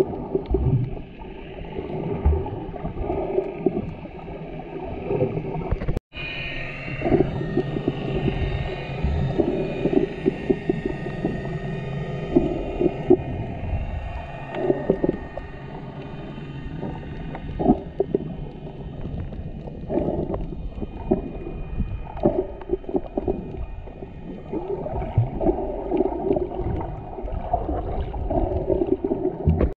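Muffled underwater sound picked up through a camera's waterproof housing while snorkeling: water sloshing and gurgling, with irregular dull knocks and swells. The sound drops out briefly about six seconds in.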